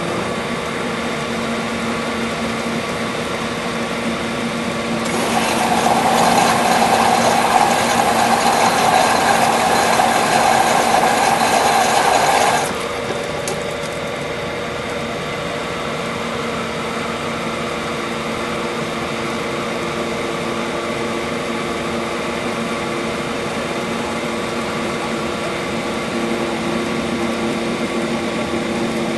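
Humidifier running with a steady mechanical hum and rattle. From about five seconds in it turns louder and harsher for some seven seconds, then cuts back to the steady hum.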